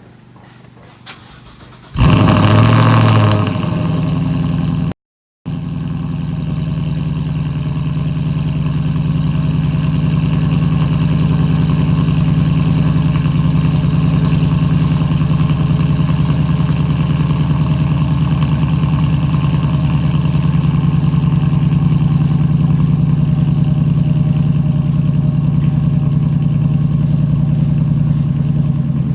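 2015 Mustang GT's 5.0-litre Coyote V8 breathing through a Ford Performance Borla cat-back exhaust with the resonator removed, cold-started: it catches about two seconds in with a loud flare of revs, drops back, then settles into a steady cold idle.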